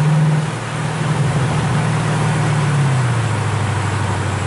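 The 6.2-litre V8 of a 2009 Mercedes-Benz C63 AMG with an Innotech Performance Exhaust, heard from inside the cabin while driving at steady revs. About three seconds in, the revs fall and the engine note drops to a lower pitch, under steady road noise.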